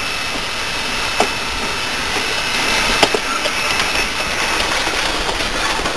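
Steam locomotive and its passenger coaches passing close by: a steady hiss of steam and running noise on the rails, with a couple of sharp clicks about a second and about three seconds in.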